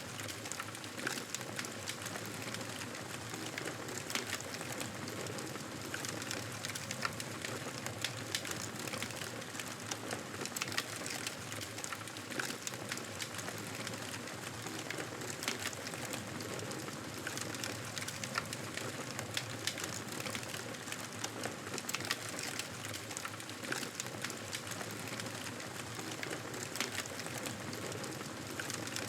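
Campfire burning with a steady hiss and frequent sharp crackles and pops from the burning wood.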